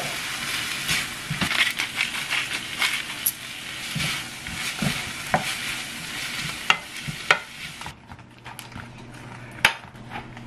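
Zucchini, onion and tuna sizzling in a ceramic-coated frying pan while a wooden spoon stirs them, with many short knocks and scrapes of the spoon against the pan. The sizzling stops about eight seconds in, and a single sharp click follows near the end.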